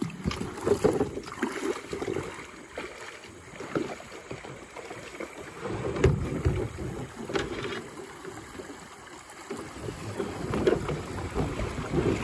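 Water splashing and sloshing around a kayak, with a few knocks against the hull and wind buffeting the microphone.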